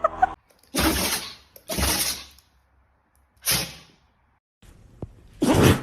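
A dog sneezing four times in a row, each sneeze a short sharp burst of air with near silence between.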